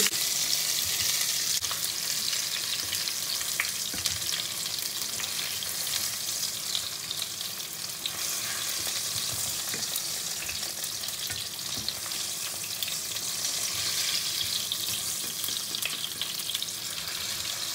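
Hot sesame oil sizzling steadily in a nonstick frying pan, with a fine scattered crackle.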